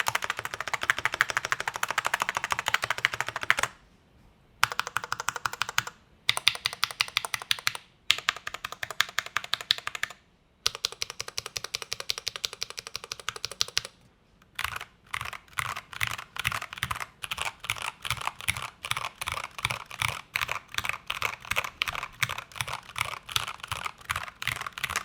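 Glorious GMMK Pro mechanical keyboard with C3Equalz Kiwi switches and stock keycaps being typed on: quick runs of keystrokes broken by short pauses, then slower, separate key presses in the second half.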